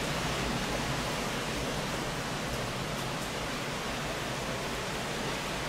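Heavy hurricane outer-band rain falling steadily, a constant rushing hiss, with a low rumble of wind under it.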